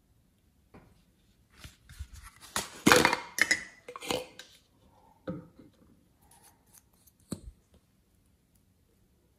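Small plastic tubes and caps handled over a tray of slime: a string of sharp clicks, snaps and rustles, loudest about three seconds in, then a few softer clicks and one sharp click near the end.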